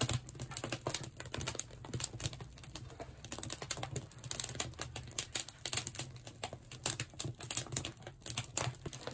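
Split oak wood burning in the fireboxes of a wood-fired salt-glaze kiln, crackling with many irregular sharp snaps over a low steady hum.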